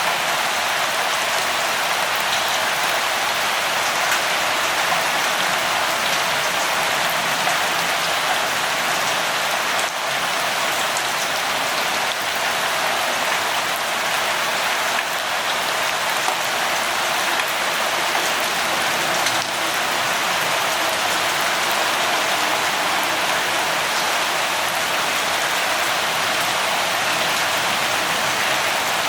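Steady light rain falling, an even hiss with a few faint drop ticks scattered through it.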